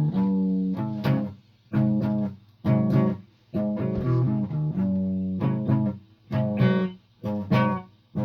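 Guitar played slowly, in short phrases of a few notes, each phrase broken off by a brief pause.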